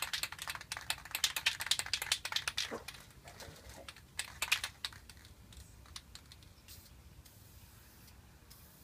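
Aerosol spray can of clear coat being shaken, its mixing ball rattling in rapid clicks for the first three seconds or so, then a few weaker rattles before it goes quiet.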